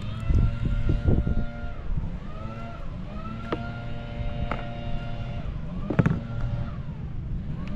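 Engine sound whose pitch rises, holds steady and falls again about three times, like motor vehicles going by, with several sharp clicks and knocks over it, the loudest about six seconds in.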